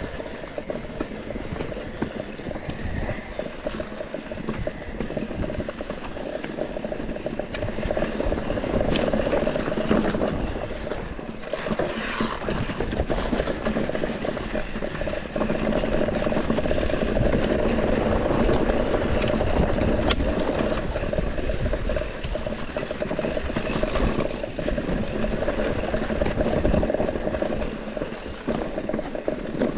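Mountain bike descending a rough trail: steady noise of wind on the microphone and tyres rumbling over the ground, with frequent rattling clicks from the bike. It grows louder from about halfway through.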